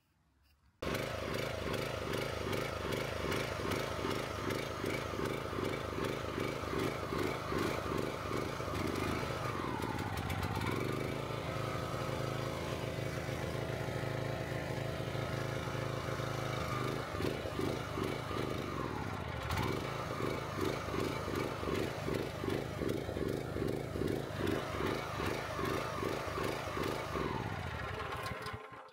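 Kohler Command Pro 9.5 hp single-cylinder engine on a Countyline 30-ton log splitter running rough, with an uneven pulsing beat and two brief dips in speed, and a steadier stretch in the middle. It cuts off suddenly near the end. The owner puts the rough running down to stale gas left in it all winter and summer.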